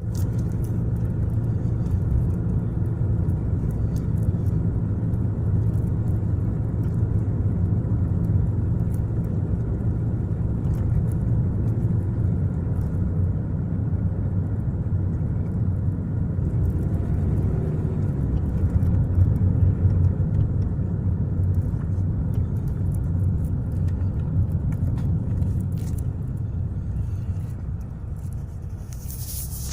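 1998 Toyota Corolla AE110 on the move, heard as a steady low rumble of engine and road noise with a faint steady tone above it. It gets quieter near the end.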